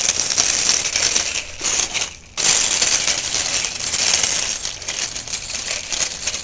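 Child's bicycle with training wheels rolling over pavement: a continuous rattling, gritty noise from the wheels. It drops out briefly about two seconds in, then resumes.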